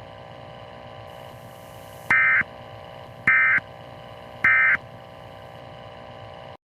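Three short bursts of EAS/SAME digital data from a NOAA Weather Radio broadcast, the end-of-message code that closes a warning. Each is a brief warbling buzz about a third of a second long, about a second apart, over a steady radio hiss. The audio cuts off suddenly near the end.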